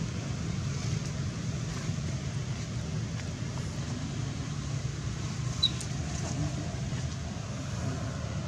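Steady low outdoor rumble, with one short high chirp about five and a half seconds in.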